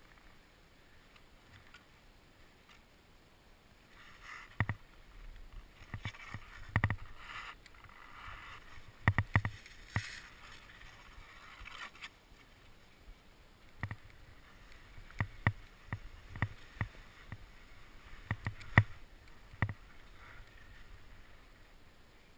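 Irregular sharp clicks and knocks with short scraping noises from ski gear (skis, poles, bindings) shifting in the snow right by a helmet camera, starting a few seconds in.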